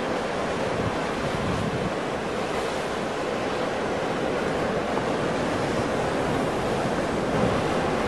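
Ocean surf: rows of waves breaking offshore into white water, a continuous steady rush with no single crash standing out.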